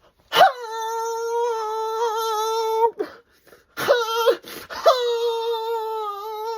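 A woman's high, strained vocal whine, held at one pitch for about two and a half seconds, then a few short catches of the voice, then held again near the end: the odd voice that comes out as she stifles a sneeze.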